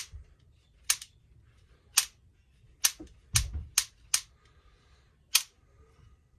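About eight sharp clicks at irregular intervals, about a second apart, from the spring-loaded automatic chain tensioner of a Homelite Easy 250 chainsaw being worked back and forth as it frees up after penetrating oil.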